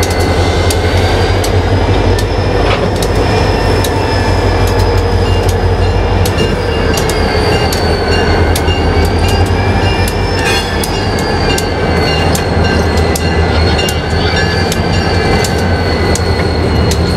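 Two diesel locomotives rolling slowly past, their engines running with a steady low drone. High, drawn-out wheel squeal wavers slowly over it, with scattered sharp clicks from the wheels on the rails.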